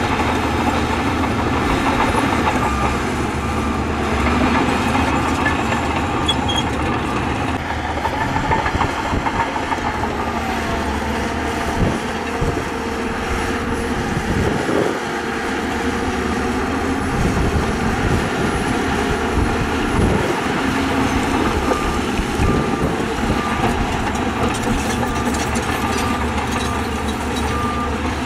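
Diesel engine of a Shantui crawler bulldozer running steadily under work, with the clanking rattle of its steel tracks and a few sharp knocks in the middle.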